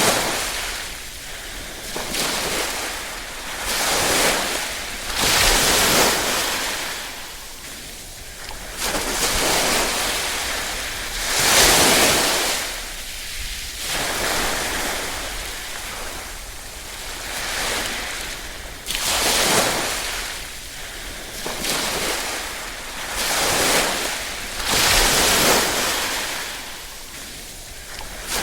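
Small ripple waves lapping in, a wash of hiss that swells and ebbs every couple of seconds.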